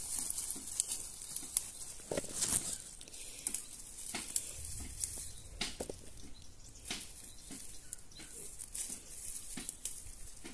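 Leaves and twigs of an acerola tree rustling as the fruit is picked by hand, with irregular small snaps and clicks.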